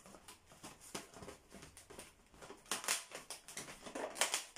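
Inflated latex modelling balloon (a 260) rubbing against itself and the hands as it is pushed through a loop and twisted into shape: a series of short scrapes, loudest about three seconds in and again near the end.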